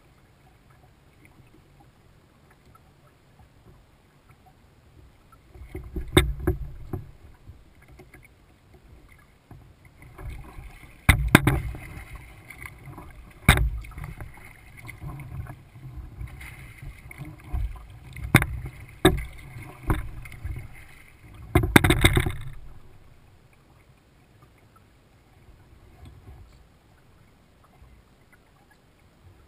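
Kayak paddling: water splashing and several sharp knocks come in bursts from about six seconds in to about twenty-two seconds in. Before and after that there is only a low, steady water noise.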